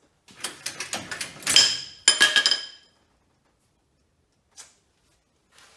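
Steel jack stands clanking as they are picked up and handled: a quick run of metal clanks and rattles, with two loud ringing metal strikes about a second and a half and two seconds in, then it goes quiet.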